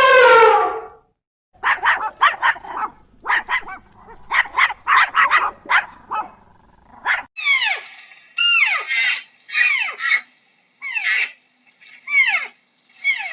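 A long pitched animal call ends about a second in. Then a dog barks in rapid bursts for several seconds, followed by a run of about seven short high yelps, each falling sharply in pitch.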